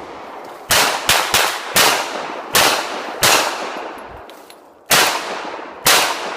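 Gunshots fired in quick succession, eight shots in about five seconds at an uneven pace, some only a quarter second apart. Each shot is followed by a long echoing decay.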